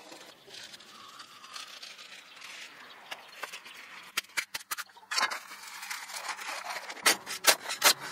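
Hand work on building materials: soft scraping and rustling with a few scattered sharp clicks, then a quick run of sharp taps, several a second, in the last second or so.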